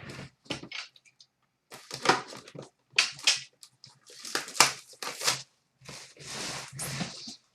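Trading-card pack wrapper being crinkled and torn open, with cards handled, in irregular bursts of crackling with short pauses between.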